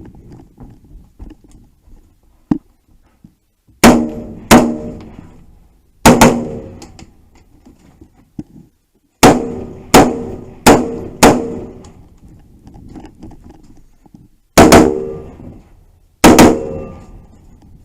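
Nine gunshots fired in a three-gun competition stage, in uneven groups: two close together, a single shot, four in quick succession, then two more. Each shot is followed by a short ringing tail.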